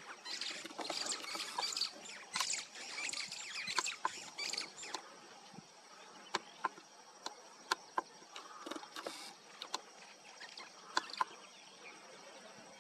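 African elephant kicking and scuffing the dry ground and grass with its front foot: dense rustling and scraping for about five seconds, then a string of sharp clicks and snaps about a second apart.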